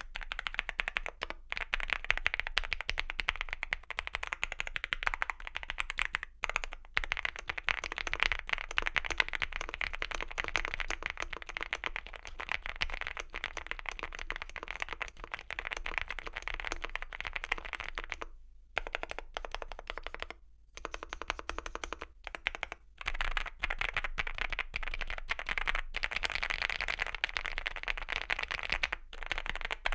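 Fast, continuous typing on an EPOMAKER x Feker Galaxy80 mechanical keyboard with factory-lubed Vertex V1 linear switches and MDA-profile PBT keycaps. Keystrokes clatter rapidly, broken by a few brief pauses.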